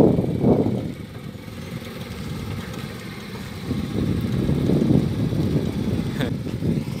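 Small engine of a home-built mini jeep running as it drives over dirt, getting louder as it comes close at about four seconds in.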